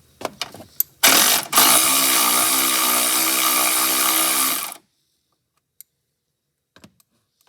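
ACDelco cordless electric ratchet running under its motor for about four seconds: a steady whine mixed with a harsh rattle, starting about a second in with a brief stutter just after, then stopping abruptly. A few light clicks come before and after it. It is being tried on a bolt torqued to 30 ft-lb, which the ratchet could not break loose.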